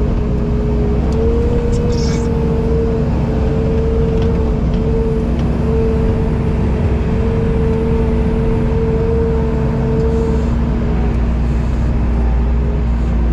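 A vehicle engine running steadily with a low drone and a whine that wavers slightly in pitch.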